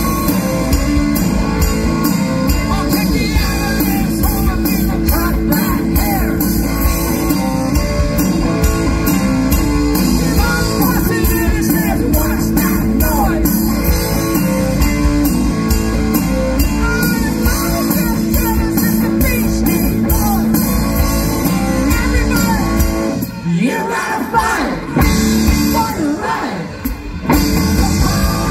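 Rock band playing live with a singer, electric guitar, bass and drums. Near the end the bass and drums drop out for a few seconds, then the full band comes back in.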